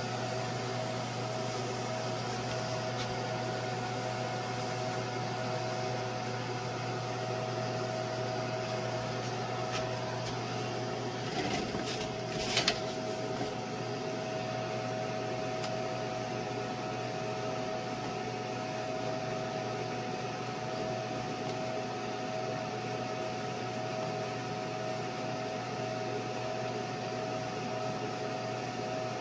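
Laser cutter running while it cuts a Kydex sheet: a steady machine hum with a thin, even whine. A couple of brief, louder noises come about twelve seconds in.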